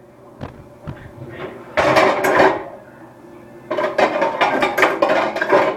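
Pots and pans clattering as a pan is fetched out: a short burst of clanking about two seconds in, then a longer stretch of clanking from about four seconds.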